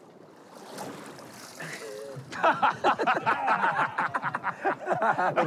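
A rush of wind and water noise, then from about two seconds in, men laughing loudly.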